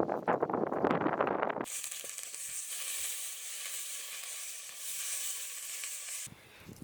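Food frying in hot oil: a steady, high sizzle that starts abruptly about two seconds in and cuts off near the end. Before it comes a denser, lower crackling noise.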